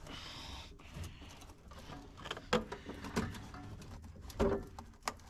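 Scattered light clicks, knocks and rustling from hands working at parts under a car's dashboard, with about half a dozen small knocks spread through.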